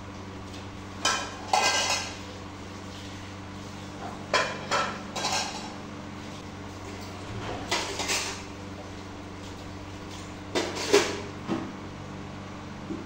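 Dishes and cutlery clattering and clinking in short bursts every few seconds as they are washed at a tap and set down in a plastic basket, over a steady low hum.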